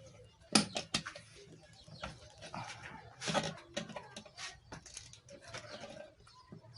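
Irregular clicks, knocks and rustling of hands handling small metal parts and cable while fastening a wire with a washer and nut.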